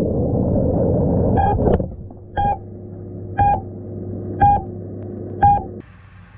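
Muffled underwater rushing and rumble picked up by the FPV quad's onboard camera as it sits submerged in a pool, dying down after about two seconds. Over a steady hum, the quad's beeper then gives five short beeps about once a second, its alarm after losing radio signal under water. The sound cuts off near the end.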